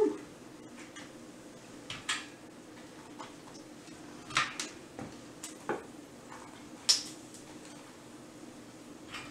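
Kitchen tongs clicking and tapping against a metal wire cooling rack and a plate while picking up fried mozzarella sticks: a handful of short, sharp clicks, the loudest right at the start and about seven seconds in.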